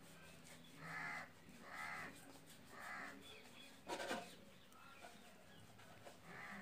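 Crow cawing three times, about a second apart, followed about four seconds in by a louder, harsher sound.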